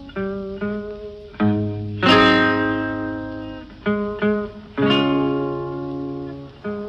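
Background music: an instrumental passage of plucked string chords and notes, each struck sharply and left to ring out, between the sung lines of an old-time jazz song.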